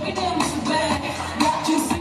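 K-pop dance song with female vocals over a backing track with a steady beat, played loud through a stage sound system.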